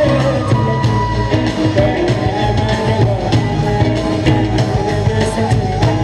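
Live band playing amplified music through a PA: singing over electric guitar and drums, with a steady drum beat.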